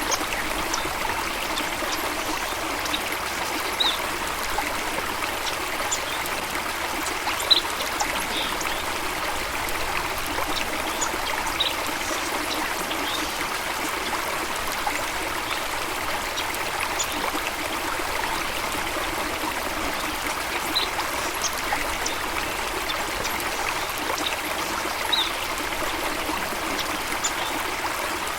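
Stream water running and trickling steadily, with brief high ticks now and then.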